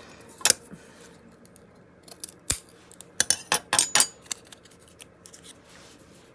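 Scissors snipping paper: one snip about half a second in, then a quick run of about five snips around three to four seconds in, with a soft knock on the table just before them.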